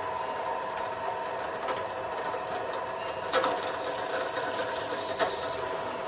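Drill motor running steadily with a hum. About three seconds in, the bit cuts into metal with a loud, pulsing high squeal that lasts about two seconds.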